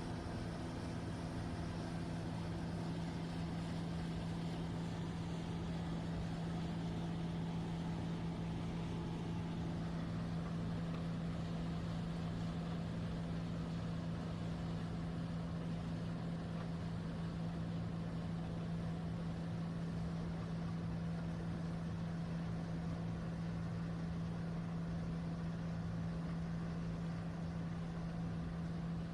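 Wirtgen cold milling machine's diesel engine running steadily as it strips the old road surface, a constant low hum.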